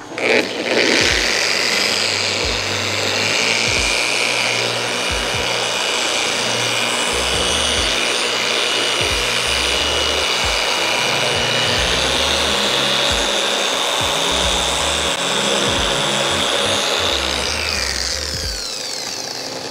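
Griot's Garage G9 random orbital polisher running steadily with a 3000-grit foam sanding disc, damp-sanding a painted panel to level out 1500-grit sanding scratches. Its motor whine winds down near the end.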